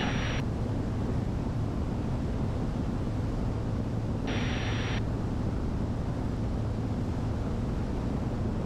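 Steady drone of the Diamond DA62's twin Austro AE330 turbodiesel engines in cruise, heard from the cockpit, with a low steady hum under even noise. A little after four seconds in, an audio channel keys open for under a second, giving a short burst of hiss with no words.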